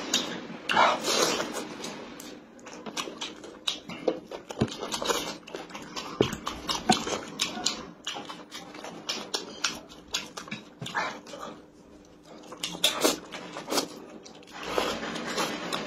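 Close-miked eating: wet chewing and lip-smacking clicks on fried chicken and noodles, with instant noodles slurped in near the end.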